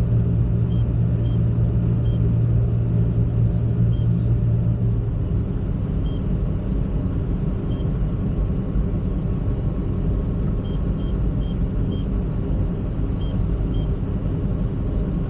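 Excavator's diesel engine running steadily with a deep rumble; its low hum changes about five seconds in as the engine note shifts, and it keeps running.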